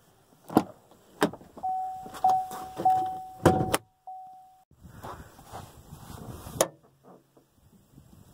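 Pickup truck driver's door latch clicking open, then the cab's warning chime sounding as a steady tone with short breaks for about three seconds, with more clicks while the interior hood release is pulled. A few seconds later the hood latch releases with a sharp click, amid rustling and handling sounds.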